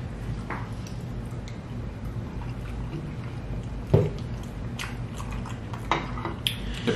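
Close-miked chewing and mouth sounds of people eating, with scattered small clicks and a single dull knock about four seconds in.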